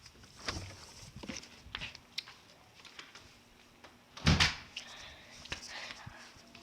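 A door being opened and shut, with scattered light knocks and one heavy thud about four seconds in.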